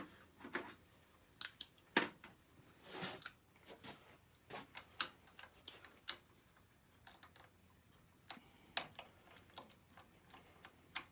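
Irregular clicks, taps and light metal clinks of hand tools and engine parts being handled during small-engine assembly.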